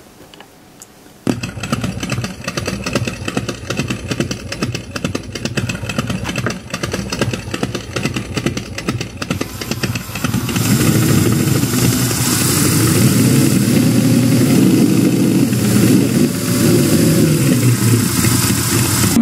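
An engine starts suddenly about a second in and runs with a rapid, even firing pulse. It gets louder about ten seconds in.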